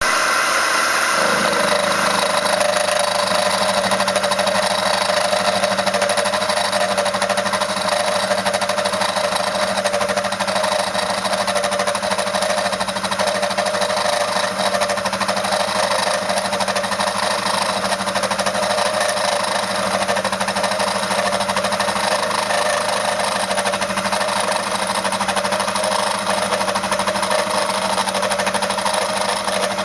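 CNC milling machine running with a 3/8-inch four-flute ball endmill in the spindle: a loud, steady machine noise with held tones. About a second in, the sound changes and then stays steady.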